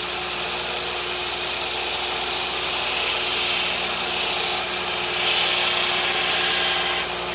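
Belt grinder running with a steady motor hum while a 1084/15N20 damascus steel knife blade is ground on a coarse 24-grit belt, throwing sparks. The grinding hiss swells and eases several times as the blade is pressed on and moved across the belt.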